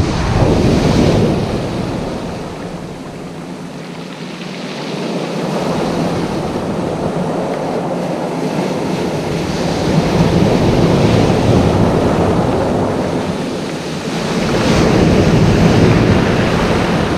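Rough sea surf washing onto the beach, with wind buffeting the microphone. The rush of the waves swells and eases, with louder surges at the start, about two-thirds of the way through and near the end.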